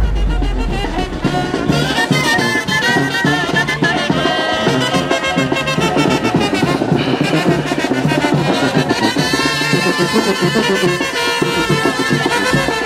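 Brass band music with a steady beat, a deep rumble dying away in the first moment.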